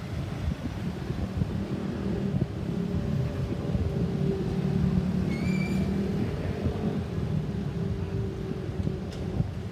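A motor vehicle running, a steady low rumble with a hum over it. A short high tone sounds once about five seconds in.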